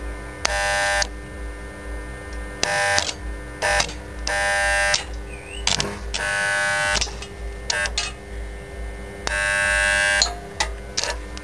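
Stick welder's arc on rusty steel tubing, striking and dying in short bursts of buzzing, the longest about a second near the end, with a low electrical hum between. The arc will not hold on the rusty frame.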